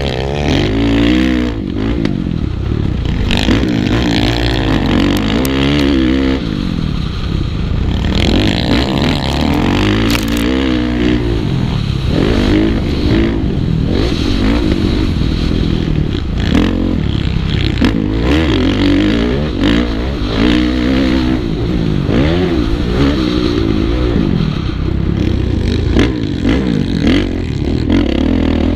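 Motocross bike engine revving hard and falling back over and over as the rider accelerates, shifts and brakes, heard from a helmet-mounted camera with scattered clatter and knocks over the top.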